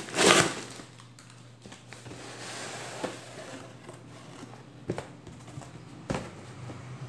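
Cardboard shipping box being torn open and handled: a loud ripping of cardboard and tape right at the start, then quieter rustling of cardboard with a few sharp knocks as the boxes are moved.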